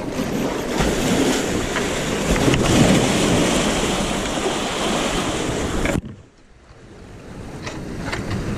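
Storm waves surging and washing over the rocks of a breakwater, with wind buffeting the microphone. The loud wash builds over the first few seconds, cuts off suddenly about six seconds in, then starts building again.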